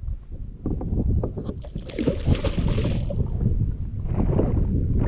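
Wind buffeting the microphone with a steady low rumble, and a brief hissing rush about a second and a half in that lasts nearly two seconds.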